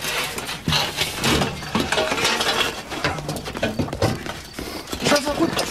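Household junk being carried and handled, clinking and clattering in a run of irregular knocks and rattles.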